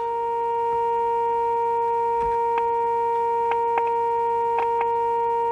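Loudspeaker of a Bush AC31 valve radio sounding a steady mid-pitched test tone with overtones, the audio on a 470 kHz IF signal injected into the set to align its IF transformers. A few faint clicks are heard over it in the middle.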